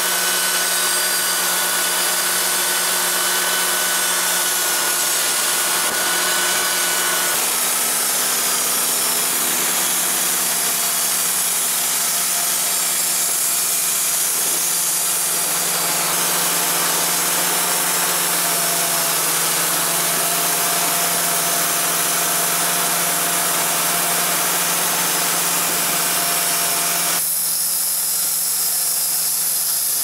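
Wood-Mizer LT35 portable band sawmill sawing a white oak log: the engine runs at a steady hum under load while the band blade cuts, with a constant hiss above it. The sound changes abruptly near the end.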